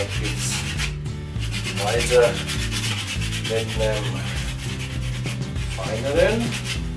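Sandpaper rubbed back and forth by hand on a cork fishing-rod grip in repeated rasping strokes, smoothing down a freshly glued cork repair.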